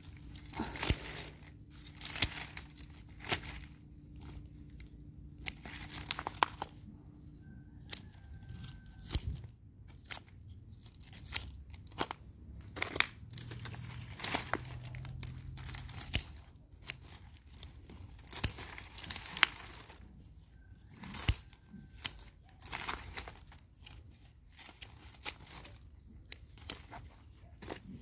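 Begonia plants being cut back by hand: irregular sharp snips with crisp tearing and rustling of the leaves and stems, and plastic flower pots being knocked and shifted.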